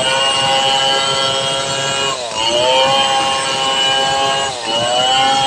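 Large two-stroke chainsaw running at high revs while ripping lengthwise through a log. Its pitch dips briefly and recovers about two seconds in and again near the end.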